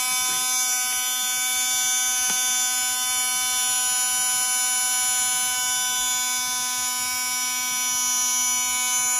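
Small 12-volt DC water pump running, a steady high-pitched electric buzz. It is loud because its motor has no housing of its own.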